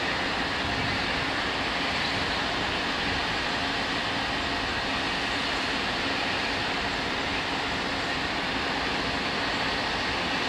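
Steady, even hum and rush of ÖBB Taurus electric locomotives heading Railjet trains, idling with their equipment running.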